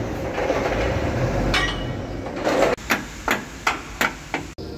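Hammer striking a Scania truck's differential housing: a run of about six sharp metal blows, roughly three a second, starting about halfway through, as the housing cover is knocked loose.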